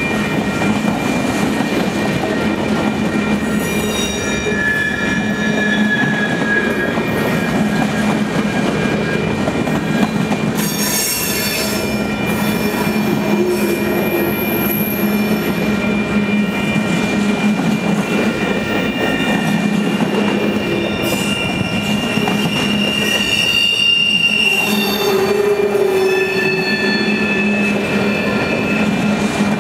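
Freight train's boxcars and centerbeam flatcars rolling past at close range, a steady rumble of steel wheels on rail. High-pitched wheel squeals come and go several times.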